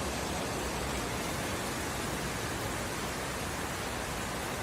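Steady, even hiss of storm wind and rain during a hurricane's approach.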